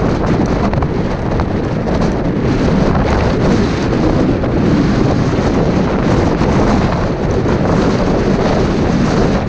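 Strong wind buffeting the camera's microphone: a loud, steady rumble.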